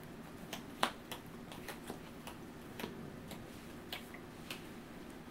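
About a dozen irregular, sharp clicks and taps, the loudest just under a second in, from hands handling Yu-Gi-Oh! cards and game pieces on the table.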